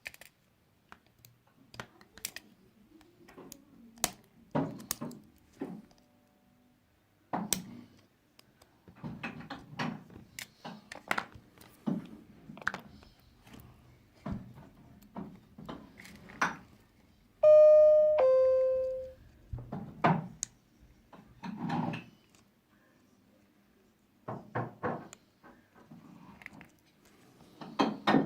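Small clicks, taps and knocks of tools and phone parts being handled during disassembly. About seventeen seconds in comes a loud two-note ding-dong doorbell chime, a higher note followed by a lower one that rings out.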